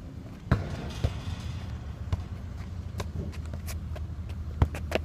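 Thuds of a football being kicked and bouncing: a sharp thud about half a second in, a few lighter knocks, and another sharp thud near the end.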